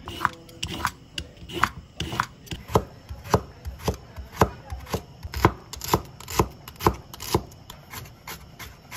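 Chef's knife chopping carrots and celery on a wooden cutting board: steady, sharp knocks of the blade on the board, about two a second, growing lighter near the end.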